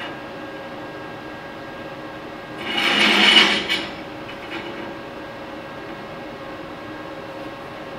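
Steel horseshoes slid and shifted by hand on a steel welding table, with one scraping rub of metal on metal about three seconds in, over a steady background hum.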